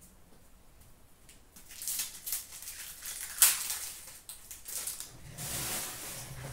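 Trading cards and foil card-pack wrappers being handled: crinkling and rustling, with a sharp snap about three and a half seconds in and a longer stretch of rustling near the end.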